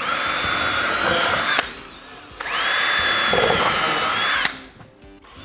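Power drill/driver running in two bursts of about a second and a half and two seconds, a steady high motor whine that rises quickly at the start of each run. These are typical of driving fasteners to mount the bottom row of wall clips.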